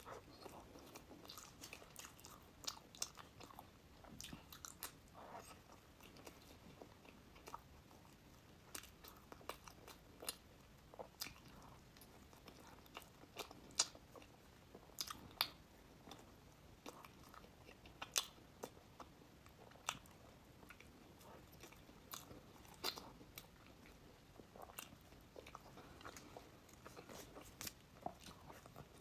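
Close-miked biting and chewing of crispy sesame pastry: irregular sharp crunches and crackles, a few louder bites around the middle, over soft mouth sounds.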